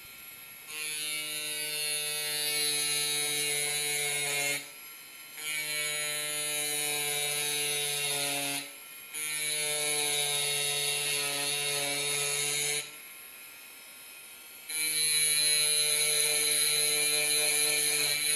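Electric micro drill with a diamond tip grinding into glass: a steady whine with a gritty high hiss, in four stretches of a few seconds with short breaks between.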